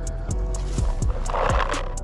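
Background music with a steady beat: crisp ticks about four a second over deep kicks that drop in pitch and held tones. A short burst of noise rises over it about one and a half seconds in.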